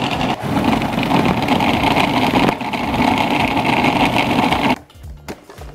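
Food processor motor running under load, mixing cocoa powder into a thick almond-flour dough, dipping briefly twice and cutting off suddenly near the end.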